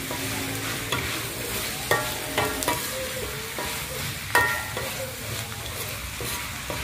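Pork belly and salted radish sizzling in a metal wok while a metal spatula stirs and scrapes them, with several sharp clangs of the spatula against the wok, the loudest about four seconds in. The stir-fry is at its last stage, the meat nearly cooked.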